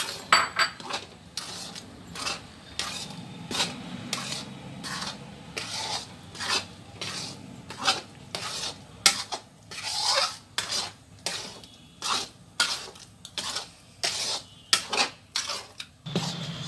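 Metal spatula scraping and turning a thick, dry mixture of ground coconut and milk powder in a steel pan, in short strokes at an uneven pace of about one to two a second. The mixture is being roasted dry on the flame.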